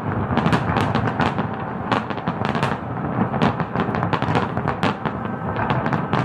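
Fireworks display going off: a dense, continuous run of bangs and crackles, several a second.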